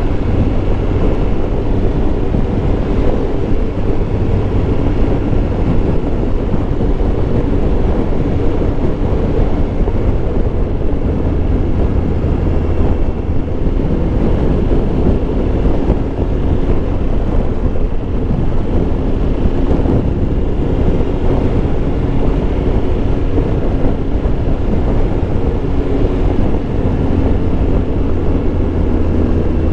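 Triumph Tiger Explorer 1200 motorcycle ridden at a steady cruise: a constant engine drone with wind rushing over the camera microphone, unchanging throughout.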